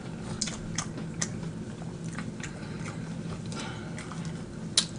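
Close-miked chewing and wet mouth clicks of a man eating fried food, with irregular short clicks and a sharper one near the end, over a faint steady low hum.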